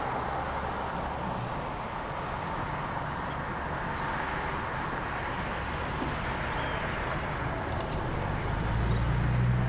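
Steady outdoor background noise with a low engine rumble that grows louder near the end.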